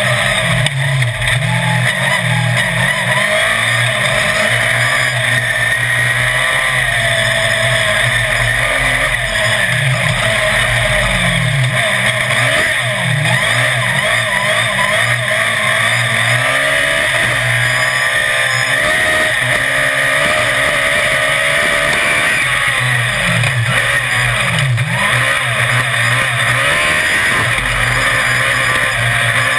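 Autocross race car engine heard close up from an onboard camera during a race heat, loud and continuous, its pitch rising and falling again and again as the driver revs up and lifts off.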